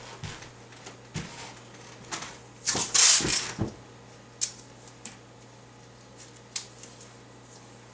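Adhesive tape being pulled and torn from a roll: a rasping burst about three seconds in, among scattered small clicks and knocks of handling.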